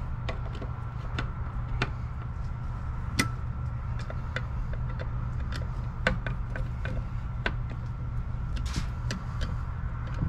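Scattered light clicks and taps of metal hardware as the kayak's motor bracket and its bolts are handled and tightened, over a steady low rumble.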